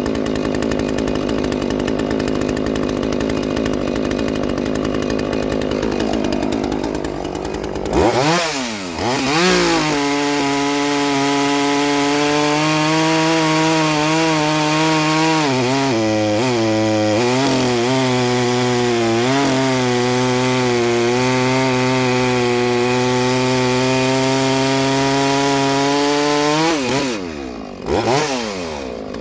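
Two-stroke chainsaw running hard while cutting hardwood. Its engine note shifts about eight seconds in, then holds a steady pitch with a few brief dips as it bogs in the cut, and changes again near the end.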